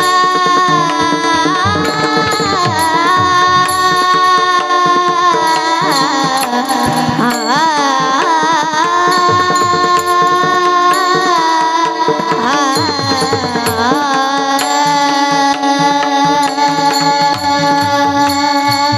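Marathi kirtan devotional singing: a voice carrying an ornamented, wavering melody over steady held instrumental tones, with hand-drum strokes keeping the rhythm.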